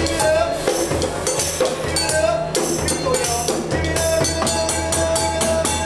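Djembe played by hand in a quick, steady rhythm, with a pitched melody line over it that includes a long held note near the end.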